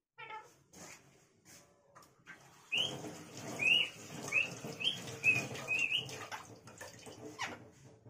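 Rose-ringed parakeet giving a run of about six short, sharp chirps, each rising and falling, about half a second apart, over a steady rushing noise that starts with them about three seconds in.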